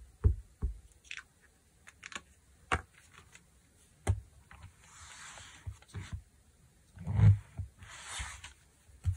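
A stamp being pressed and knocked repeatedly against fabric on a tabletop to get the ink to take: scattered light knocks, a heavier one about seven seconds in, and two short rustles about five and eight seconds in.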